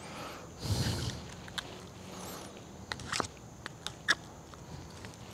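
Steel pick tool clicking and scraping against a hydraulic cylinder gland as the old seals are picked out of its grooves. A brief rustle about a second in, then a scattering of small sharp metal clicks, the sharpest about four seconds in.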